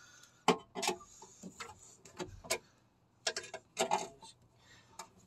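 Screwdriver prying and twisting a knockout in a sheet-steel electrical breaker box, making a series of irregular metal clicks and taps as the knockout is worked loose from its spot welds.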